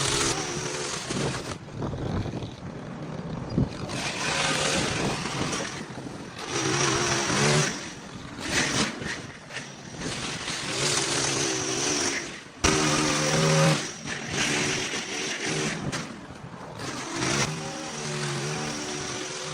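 Small gas engine of lawn equipment running at high throttle, revving up and easing off again and again, with a wide hiss over the engine tone.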